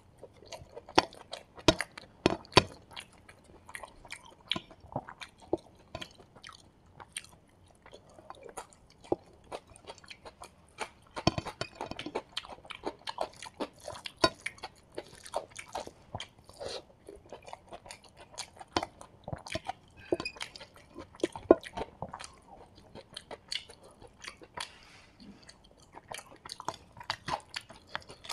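A person eating rice and fried chicken by hand, close to the microphone: irregular chewing and crunching with many short wet mouth clicks, mixed with the soft squish of fingers working the rice on the plate.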